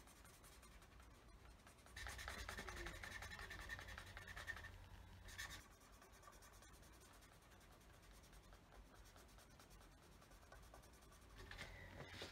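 Pen scratching on paper while colouring in, in quick back-and-forth strokes, louder from about two seconds in until about five and a half, then fainter, picking up again near the end.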